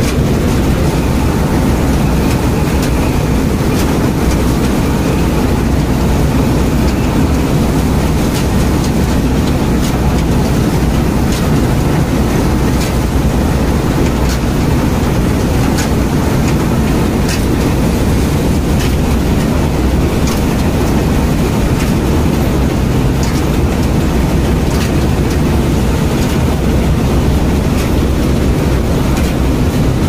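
Combine harvester running while cutting crop, its engine and header machinery making a loud, steady drone without a break, with scattered sharp ticks over it.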